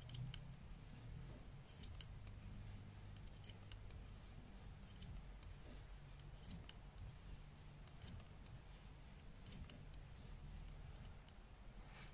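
Faint, irregular clicking of 5 mm Knit Pro knitting needles tapping against each other as stitches are knitted along a garter-stitch row.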